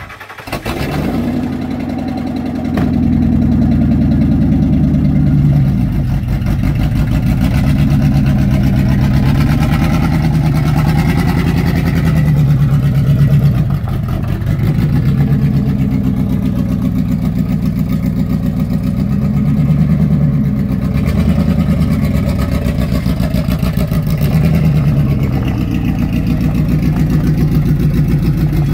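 A 2003 Ford F-250 pickup's engine starts and keeps running. It is revved up and settles back down several times.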